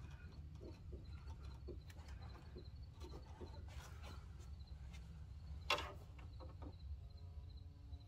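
Low, steady outdoor rumble with a few faint clicks and one sharper knock a little before six seconds in.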